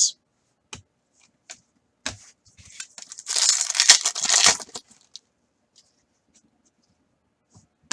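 A pack of O-Pee-Chee Platinum hockey cards torn open: a rustling tear of the wrapper lasting under two seconds, starting about three seconds in, with a few light clicks of cards being handled around it.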